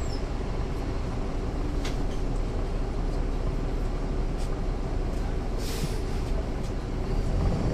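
Caterpillar C13 inline-six diesel engine of a NABI 40-foot transit bus running steadily, heard inside the cabin from a rear seat, with a short hiss about two-thirds of the way through. The engine grows louder near the end.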